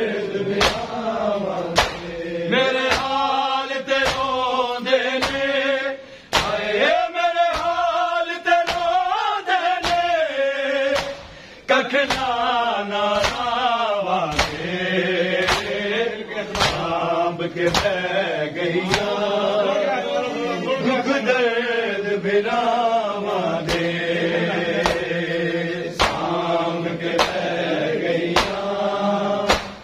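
Men's voices chanting a noha together, with rhythmic matam: bare-chested mourners striking their chests with open hands in unison, a sharp slap at a steady pace. The chant breaks off briefly twice.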